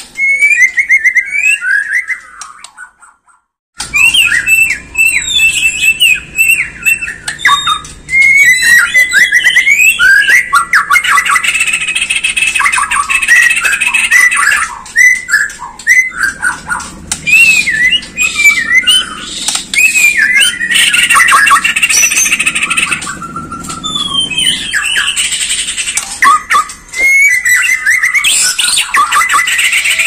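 White-rumped shama singing loudly in a fast, varied stream of clear whistles, slurred notes and harsh chattering trills. The song breaks off briefly about three seconds in, then resumes and runs on almost without pause.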